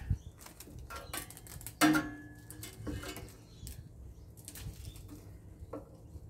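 Scrap copper cable being handled by hand: rustling and clicking as the split insulation is peeled off the wire. About two seconds in comes one loud metallic knock that rings briefly.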